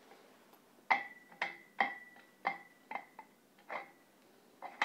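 Steel guide sleeve clinking against the piston case of a Sandvik RH460 DTH hammer as it is worked down into the bore by hand: about eight or nine irregular metal-on-metal clinks, each ringing briefly, beginning about a second in.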